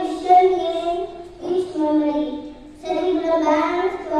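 A young boy singing into a handheld microphone, three phrases of long held notes with short breaks between them.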